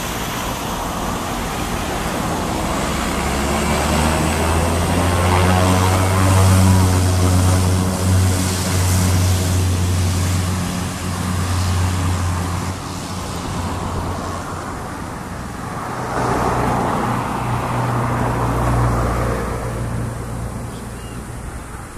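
Cessna 208 Caravan's PT6A turboprop engine and propeller running as the aircraft taxis away, a steady low drone with a thin high turbine whine. It swells about a third of the way in and again near the end as power comes up for the takeoff run.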